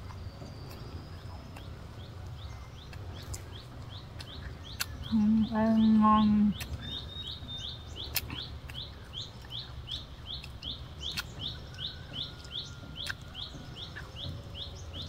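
A bird calling over and over in forest undergrowth: short rising chirps, about two a second, setting in a few seconds in and going on steadily, over a faint background hush. One drawn-out spoken word cuts in about midway.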